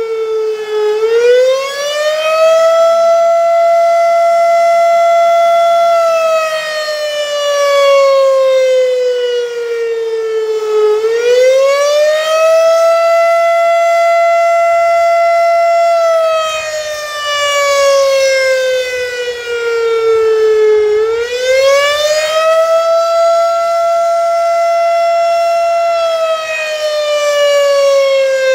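Federal Signal RSH-10 Thunderbeam electromechanical siren sounding an attack signal: a loud tone that climbs quickly, holds high for a few seconds, then slowly falls, repeating about every ten seconds, three times.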